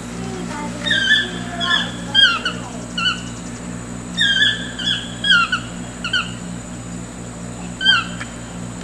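Two toucans calling back and forth with short yelping notes that drop in pitch, given in quick clusters of two to four with short pauses between; the last call comes near the end.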